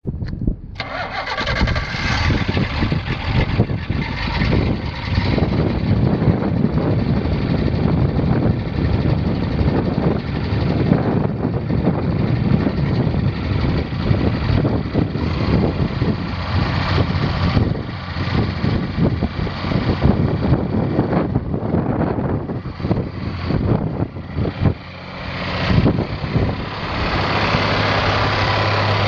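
John Deere 2840 tractor's six-cylinder diesel engine running, loud and uneven in level. It dips briefly about 25 seconds in, then settles into a steadier hum near the end.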